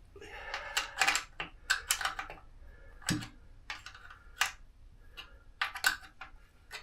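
Irregular light metal clicks and taps, about a dozen spread unevenly, from hand tools at work setting the tension of a motorcycle drive chain.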